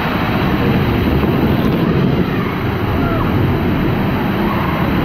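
Water-park lazy-river waterfall pouring down onto riders in inflatable tubes: a loud, steady rush of falling, splashing water.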